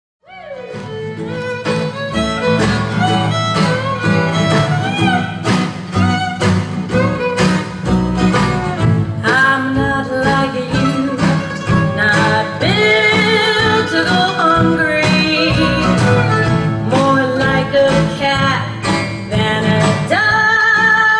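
Bluegrass string band playing, with fiddle, mandolin, acoustic guitar and upright bass. The music starts out of silence just after the beginning.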